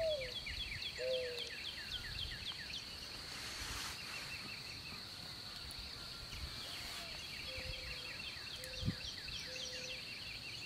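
Evening outdoor ambience: a steady high-pitched insect drone under rapid runs of short down-slurred bird chirps, with a few low calls that rise in pitch at the end. A brief rustle about three to four seconds in, and a soft thud near the end.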